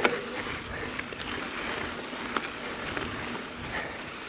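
Mountain bike rolling over a dirt trail: steady tyre noise on the ground, with sharp clicks and rattles from the bike, a strong one at the very start and another about two and a half seconds in, and wind on the microphone.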